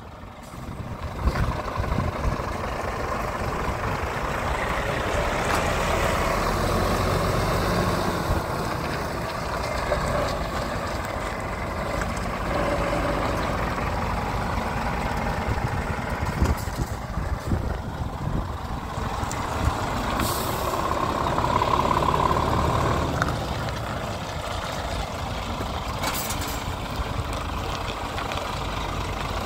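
Scania R450 tractor unit's 13-litre straight-six diesel idling steadily, with two brief hisses in the last third.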